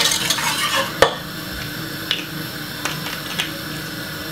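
Wire whisk stirring cornmeal porridge in a metal pot, scraping against the pot; a sharp clink about a second in, then quieter stirring with a few light taps.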